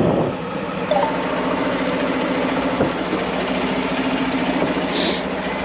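Air-conditioning unit running after repair with a steady mechanical hum and a low steady tone, a few light clicks, and a short hiss about five seconds in.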